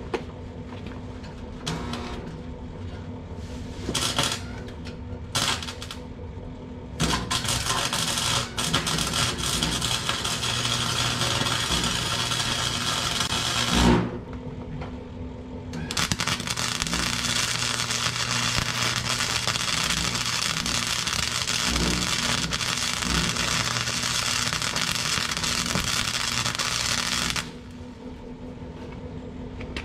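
Wire-feed welder arc crackling and hissing while tacking a steel pipe handle onto a steel air compressor tank: three short bursts in the first six seconds, then two long steady runs of about seven and eleven seconds with a short pause between. A steady low hum runs underneath.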